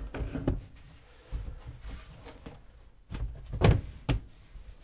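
Thumps and knocks of a piece being lowered and pressed into place in wooden kitchen cabinetry, a few light knocks at first, a louder cluster of thumps about three and a half seconds in, then one sharp knock.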